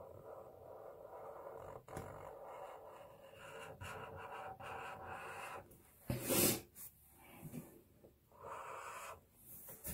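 Marker tip rubbing on sketchbook paper in short strokes with pauses, with a few light taps. A brief louder rush of noise comes about six seconds in.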